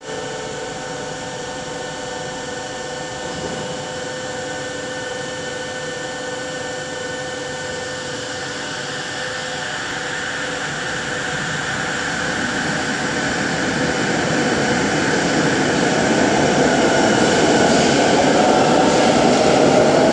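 Kelana Jaya Line four-car light-rail train, driven by linear induction motors, moving off along the station platform. A steady electric whine of several tones gives way, from about eight seconds in, to a rising rush of running noise. The running noise is loudest in the last few seconds as the cars pass close by.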